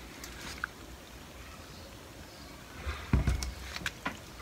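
Plastic watering can tipped over a potted plant: water trickling faintly from its thin spout into the soil. About three seconds in there is a brief cluster of thumps and clicks.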